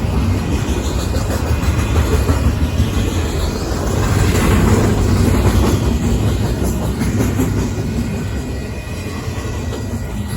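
Union Pacific intermodal freight cars rolling past at speed: a steady rumble of steel wheels on the rails, swelling loudest about four to six seconds in and easing after.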